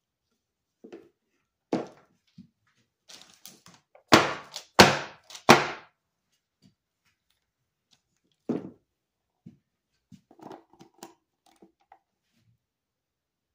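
A run of hard thuds and knocks on a tabletop: a few light ones, then three loud thuds close together in the middle, one more a few seconds later, and lighter knocks near the end.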